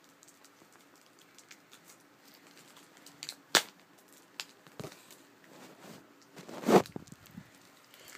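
Plastic shrink wrap being torn and crinkled off a Blu-ray box set: scattered faint crackles, a sharp snap about three and a half seconds in and a louder tearing rustle about seven seconds in.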